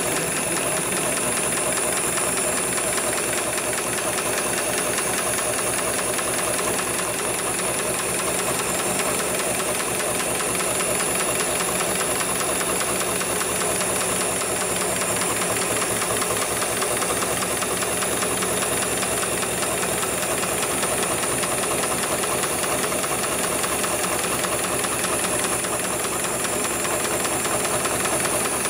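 HIGHTEX 7273 CNC automatic industrial pattern sewing machine running steadily, its needle stitching a pattern into a heavy webbing strap for a sling. A fast, even clatter of needle strokes with a steady high whine above it.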